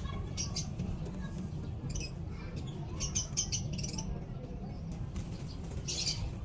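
Young racing pigeon (a squeaker) peeping: short, high-pitched squeaks in little clusters, a run of them about three seconds in and another near the end, over a steady low rumble.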